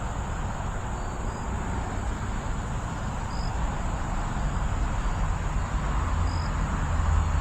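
Wind buffeting the microphone, a low rumble that grows stronger near the end, over a steady high insect drone with a few short high chirps.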